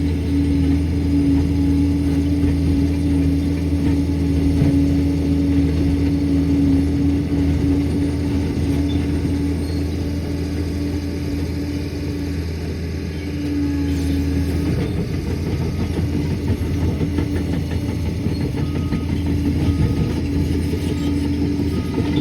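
Liebherr 746 crawler dozer's diesel engine running steadily with a held droning tone. About two-thirds of the way through the tone fades and the sound turns rougher.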